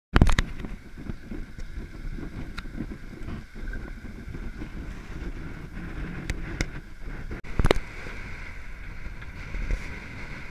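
Sailboat under way in a choppy sea: wind buffeting the microphone over the rush of the water. Several sharp knocks stand out, the loudest about three-quarters of the way through.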